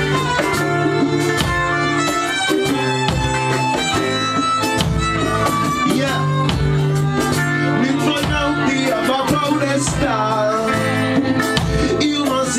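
Live band music: a strummed acoustic guitar and a fiddle playing over a steady beat.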